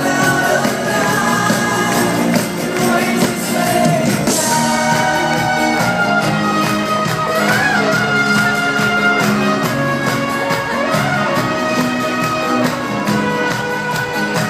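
Live band music with a lead singer, heard from far back in the audience through a phone's microphone.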